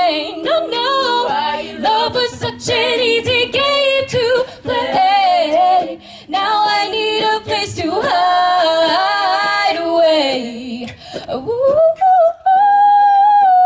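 Female a cappella group singing: a lead voice on a microphone over unaccompanied backing voices, closing on a long held note near the end.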